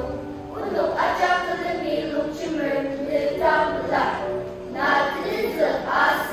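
Children's choir singing together, several young voices in unison without instrumental accompaniment.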